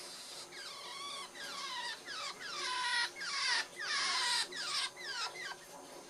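Java sparrow calling: a quick run of about a dozen short notes, each sliding down in pitch, growing louder toward the middle and then fading away.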